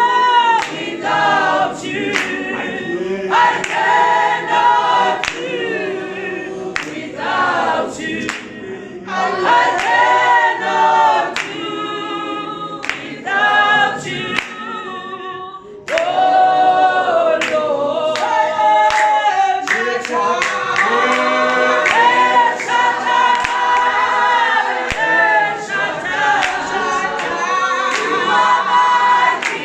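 A church congregation or choir singing a gospel song together, with no instruments, and sharp beats keeping time through the song. The singing drops briefly just before the middle, then comes back in full.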